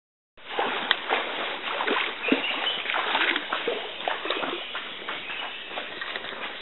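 Crackling, rustling and splashing of the safari elephant moving through vegetation and wet ground, full of small snaps and clicks. It starts after a short dropout at the very beginning.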